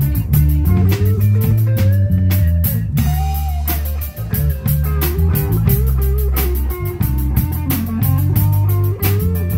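Live rock band playing an instrumental passage: an electric guitar line over a steady bass line and a drum kit keeping time, with no vocals.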